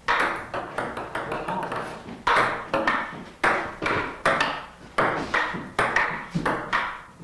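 Table tennis rally: a ping-pong ball clicking off the paddles and bouncing on the table, about two to three sharp hits a second, heard on an old stereo tape recording.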